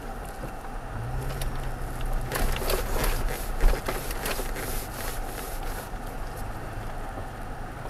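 Pickup truck heard from inside the cab, creeping over a rough dirt road with a low engine hum; about two seconds in, a run of crunching and crackling lasts around three seconds, with a single knock near the middle.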